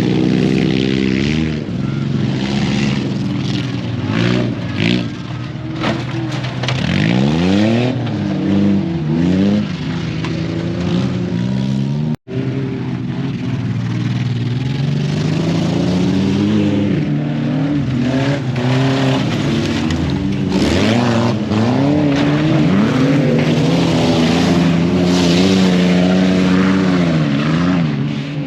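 Off-road race truck engines revving hard, their pitch rising and falling again and again as the throttle is worked, with a split-second break near the middle.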